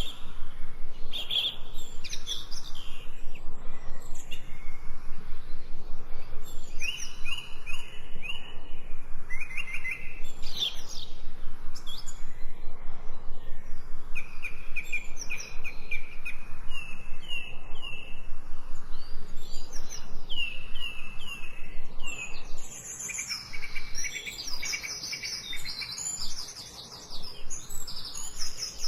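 Several songbirds chirping and singing, with runs of short repeated whistled notes and trills, over a fast, even pulsing background that drops out for a few seconds near the end.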